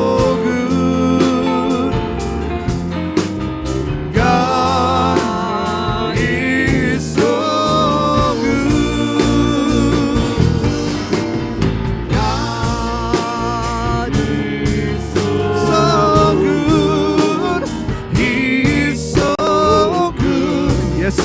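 Live church worship band playing a gospel praise song, with voices singing over the instruments.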